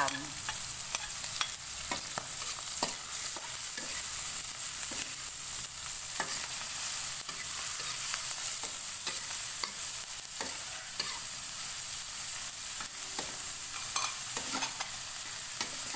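Shelled green mussels frying in oil in an aluminium wok with a steady sizzle, while a metal spatula stirs and scrapes them, clicking irregularly against the pan.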